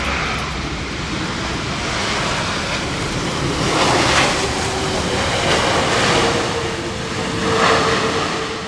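Airbus A330-900neo's Rolls-Royce Trent 7000 jet engines roaring during its landing, a loud steady rush with a faint whine underneath. The roar swells about four seconds in and again near the end.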